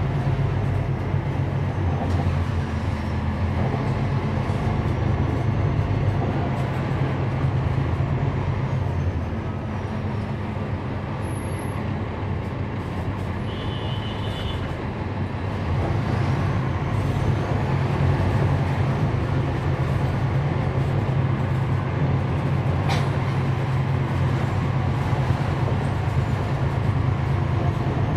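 Inside the cabin of a NABI 416.15 transit bus: its Cummins ISL9 inline-six diesel and ZF Ecolife six-speed automatic are running. The engine sound eases off for several seconds in the middle, then builds again about 16 seconds in. A short high beep sounds about 14 seconds in.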